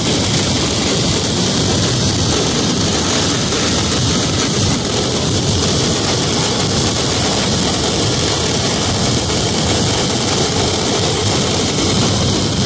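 A massed fireworks barrage: firecrackers and aerial shells going off without a break, the bangs running together into one steady, loud noise.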